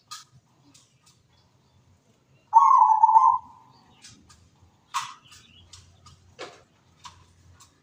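Zebra dove (perkutut) cooing: one rapid, trilling burst of coo notes about two and a half seconds in, lasting just under a second. It is followed by a few scattered sharp clicks.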